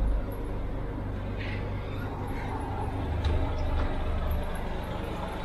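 Riverboat engine running at idle: a steady low rumble, swelling a little about three seconds in.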